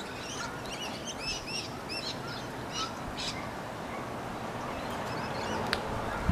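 Small birds chirping: a busy run of short, quick up-and-down high notes for the first three seconds or so, thinning to scattered calls after, over a steady low background rumble.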